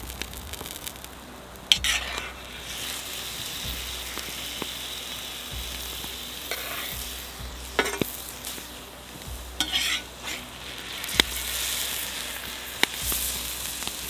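Beef cubes sizzling in hot oil in a wide pan, with a metal ladle and slotted skimmer scraping against the pan several times as the meat is scooped out.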